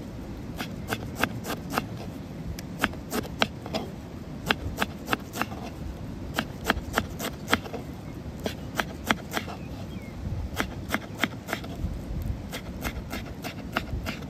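Kitchen knife chopping fresh green herbs on a wooden cutting board: a string of sharp, irregular knocks of the blade on the board, about two a second.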